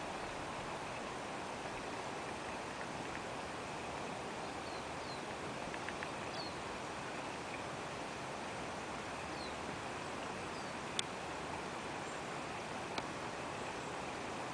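Outdoor ambience: a steady, even hiss with a few faint, short high bird chirps scattered through it, and two sharp clicks late on.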